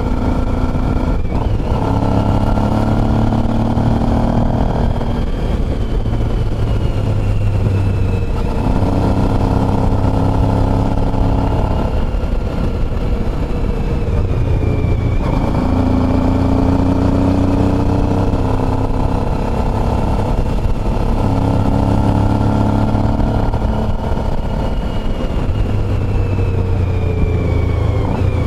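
Motorcycle engine running while riding, over a steady rush of wind and road noise. The engine note eases off and comes back every few seconds as the throttle is closed and opened again.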